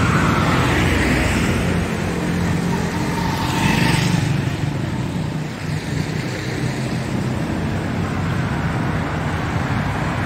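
Road traffic on a rain-wet street: cars driving past with tyres hissing on the wet asphalt, one passing loudest about four seconds in.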